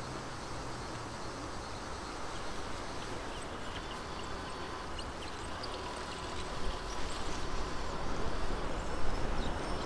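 Strong wind buffeting the microphone over a steady outdoor hiss, becoming louder and gustier about two-thirds of the way in. A few faint high ticks or chirps come through in the middle.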